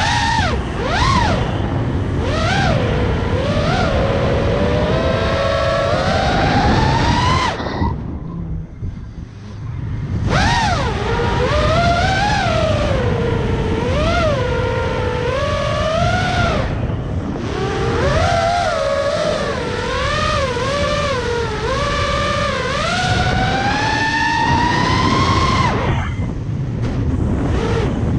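FPV racing quadcopter's brushless motors whining, the pitch swooping up and down with the throttle. Around a third of the way in the whine drops away for about two seconds, then climbs back. A low rushing noise runs underneath.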